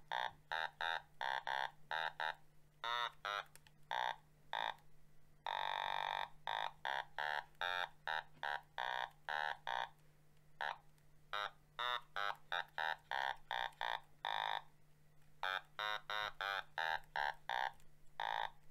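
An Otamatone, the handheld electronic synth instrument, played on its low pitch setting: a run of short notes, a few a second, picked out like a guitar riff, with one longer held note about five and a half seconds in.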